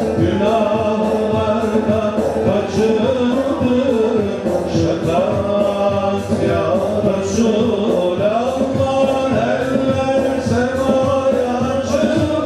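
Ilahi, a Turkish Sufi hymn, sung by male voices over a steady drum beat.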